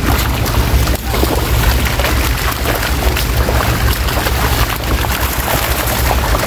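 Netted fish thrashing and splashing in shallow water, a dense run of quick sharp splashes, over a steady low rumble.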